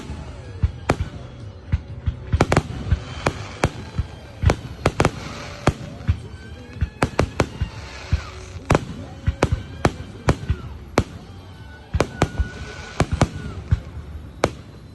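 Fireworks going off in a rapid, irregular string of sharp bangs, several close together at times, with music faintly in the background.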